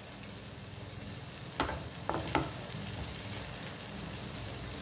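Wooden spatula stirring grated potato frying in oil in a nonstick pan: a soft, steady sizzle with scrapes and light taps of the spatula against the pan, about eight in all.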